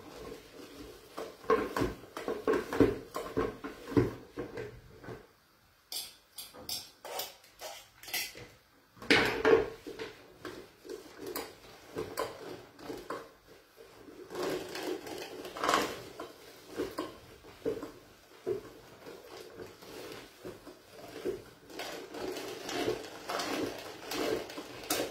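Metal hand-cranked food mill (passaverdure) clanking and scraping in irregular knocks as cooked greens are worked through it, with a quieter stretch of light taps partway through. The greens are passing through with difficulty.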